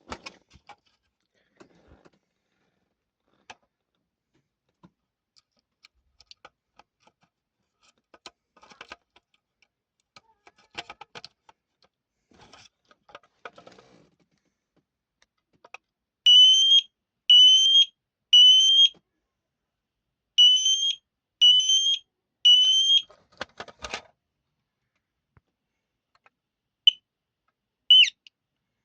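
Niglon NFA01A photoelectric smoke alarm sounding its shrill high beep in the temporal-three alarm pattern: two sets of three beeps with a pause between them. Faint handling clicks and rustles come before, and a knock and two short chirps follow near the end.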